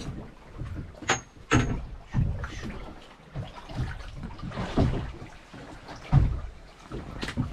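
Knocks and bumps aboard a small boat with water sloshing against the hull. Two sharp clicks, each with a brief high ring, come about a second in and another comes near the end.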